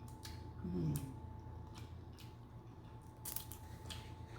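Close-up eating sounds: wet chewing and lip smacks while eating crab meat in butter sauce, with a short hummed "mm" about a second in.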